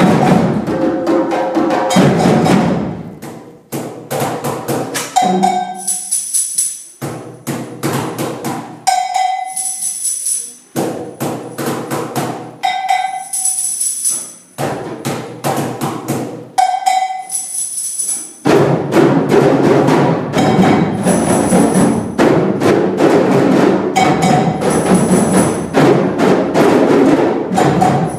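A group of children playing hand drums together in rhythm. In the middle the playing thins to sparse strikes, with a ringing, bell-like accent about every four seconds. About eighteen seconds in, the full ensemble drumming comes back in, dense and loud.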